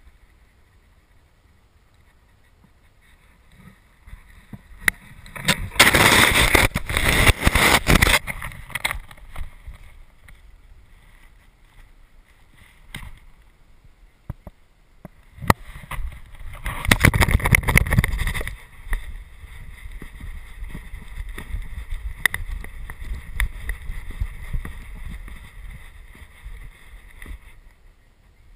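Snow crunching and scraping against a dog-mounted action camera in its housing as the dog moves about on its back in the snow, in two loud rubbing stretches a few seconds in and about halfway through, with faint clicks and rustling between.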